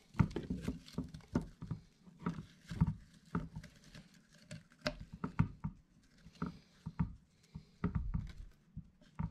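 Hands bending a fibreglass tiki torch wick and fitting it into the PVC body of a homemade smoke tester: irregular light knocks, taps and rustles of handling, with no steady rhythm.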